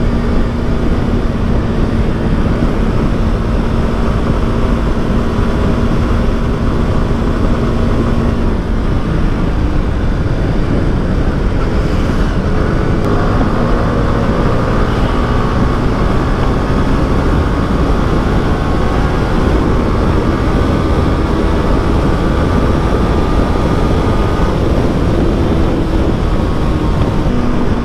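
Yamaha R15 V3's single-cylinder engine cruising steadily on the open road, heard from the rider's seat with wind rushing over the microphone. Its pitch drifts slowly up and down with small throttle changes.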